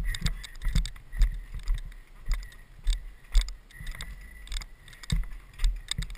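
Mountain bike rolling over concrete paths and steps, its frame and parts rattling with irregular knocks and clatters, over a low rumble of wind and road noise on the helmet camera.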